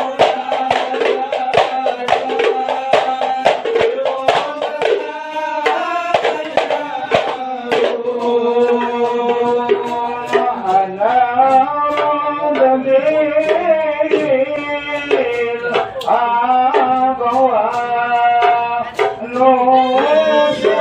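Men singing Islamic devotional chant (sholawat) together to hadrah frame drums (terbang) beaten in a steady, dense rhythm. The drum strokes are thickest in the first few seconds; the sung melody comes forward later.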